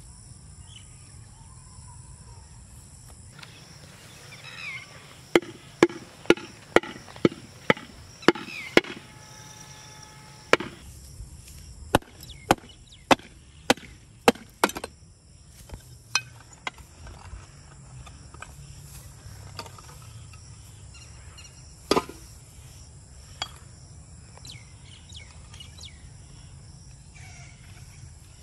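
A stone knocking against a terracotta flowerpot to crack it off a young fruit tree's root ball. A run of sharp knocks comes about two a second for around ten seconds, then a few scattered single knocks.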